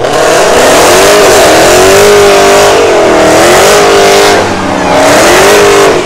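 A car engine revved hard over and over, loud, its pitch climbing and dropping about once a second under a heavy rush of exhaust noise.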